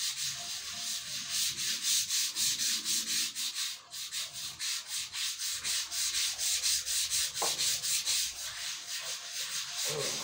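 Hand sanding with sandpaper: quick back-and-forth strokes scraping over the rounded edge of a long block, at about four strokes a second, with a brief pause about four seconds in.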